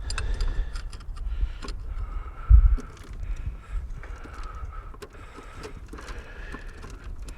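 Metal clinking and rattling as a snowblower's roller drive chain is handled, with a dull thump about two and a half seconds in.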